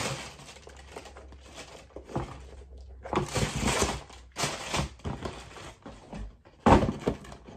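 Shoe boxes and tissue paper being handled: paper rustling and crinkling in several bursts, with a sharp knock near the end.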